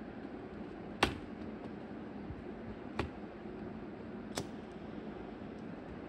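Metal toggle switches flicked by hand: three sharp clicks spread over a few seconds, the first the loudest, over steady background noise.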